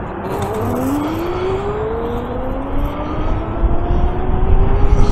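Electric scooter's hub motor whining, rising steadily in pitch as the scooter accelerates, with wind rushing over the microphone that grows louder near the end.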